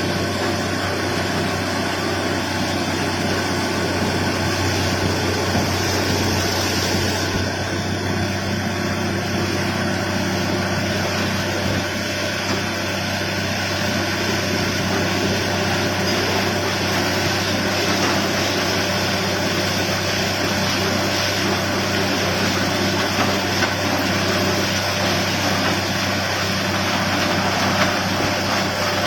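Borewell drilling rig running steadily, a continuous loud engine-like drone.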